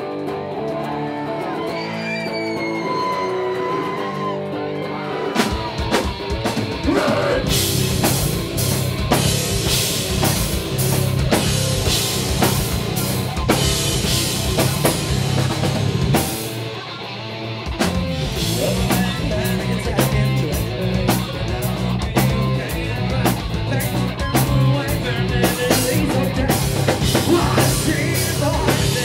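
Live rock band playing loudly through a PA: a guitar alone at first, then drums and the full band come in about five seconds in. The band cuts out briefly a little past halfway and then crashes back in.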